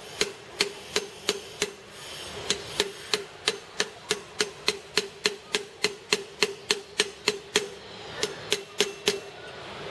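Hand hammer striking a 30 mm socket used as a drift, tapping a 6204 ball bearing into a motorcycle front wheel hub: a steady run of sharp metal-on-metal taps, about three a second, with two short pauses.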